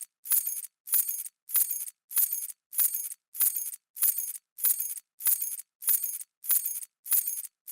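A bunch of metal keys dropping and jingling, over and over at an even pace of about one jangle every 0.6 seconds. Each one is a short, bright metallic jingle that stops sharply.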